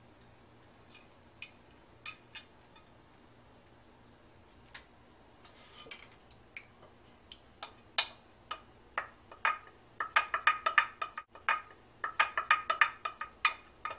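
A spoon clinking and scraping against cookware while the kookoo-sabzi herb-and-egg mixture is scooped into a frying pan. It starts as scattered taps, then becomes quick ringing clinks that are densest in the second half.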